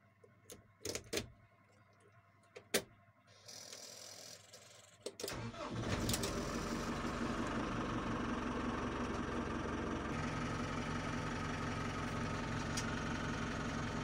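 Clicks of the ignition key, then a JCB 3CX backhoe loader's diesel engine turns over and starts about five seconds in, settling into a steady idle.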